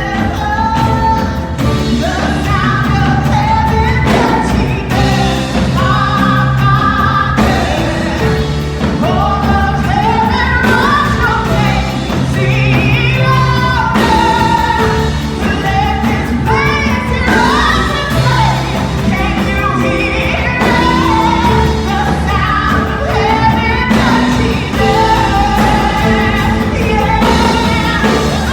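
Gospel worship song, sung with instrumental accompaniment: a melodic voice line over a steady bass.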